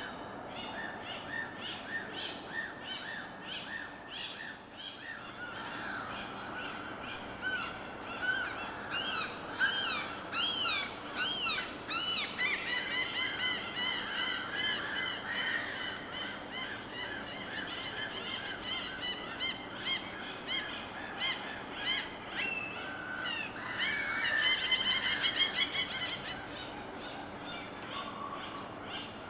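Many birds calling at once, a dense chorus of quick, repeated rising-and-falling chirps and trills, busiest about a third of the way in and again near the end, over a faint steady wash of water.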